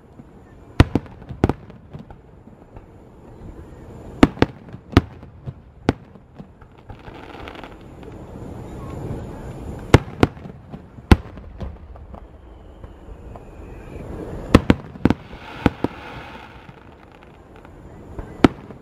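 Aerial fireworks display: shells bursting overhead as sharp bangs at irregular intervals, over a dozen in all, some coming in quick pairs.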